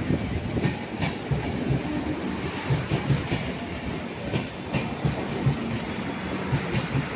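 Red-and-grey Indian Railways LHB coaches of the 15554 Vaishali Superfast Express rolling slowly past along the platform. The wheels rumble steadily and clack at uneven intervals over the rail joints.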